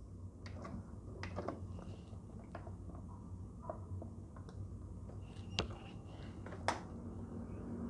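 Sony TC-KA3ES three-head cassette deck running quietly with a metal tape during its automatic calibration: a low steady hum with scattered faint clicks. A sharper click comes a little after five and a half seconds and another near seven.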